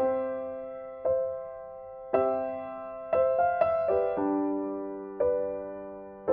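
Background music: slow, soft piano chords struck about once a second, each left to ring and fade.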